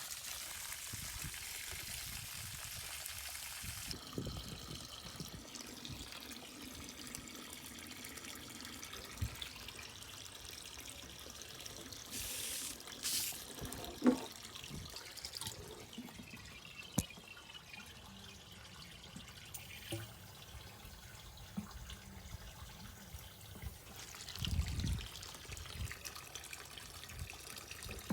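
Water running and trickling, with some pouring, as the rusty plastic fuel tank of a Polaris Ranger is rinsed out. A few sharp knocks come through partway in.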